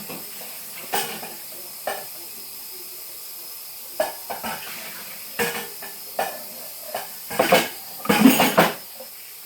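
Noodles and scrambled eggs sizzling in butter in a pan, with a utensil clinking and scraping against the pan in short bursts, the loudest clatter near the end.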